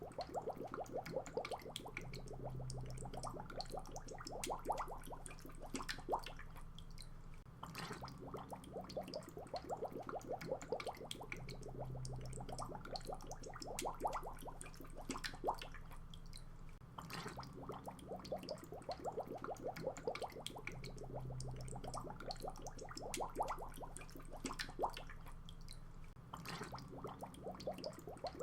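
Water bubbling: quick runs of small bubble pops and gurgles with occasional sharper drips and plops. The same pattern comes round again about every nine seconds.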